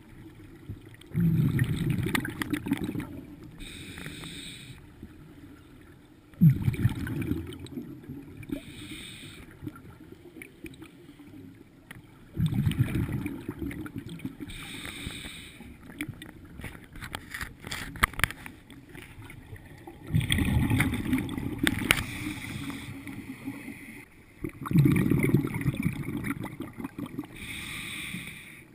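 Scuba diver breathing through a regulator, heard underwater through the camera's housing: five loud bursts of exhaled bubbles rumbling past, roughly every five seconds, with a shorter hiss of the regulator on each inhale in between.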